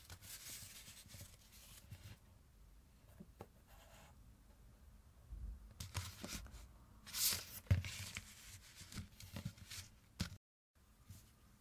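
Hands handling sheets of kraft paper with a dry, papery rustle. This is followed by the crinkle of a clear plastic sleeve around a set of colour pencils, loudest about seven seconds in, with a soft knock just after.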